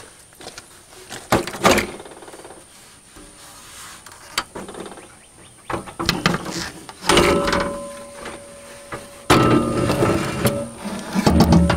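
Knocks, bumps and rubbing of a Mahindra 5555 tractor's plastic front grille housing as it is worked loose by hand and lifted off its mounts. A few separate knocks come first, then a busier stretch of clattering and scraping near the end.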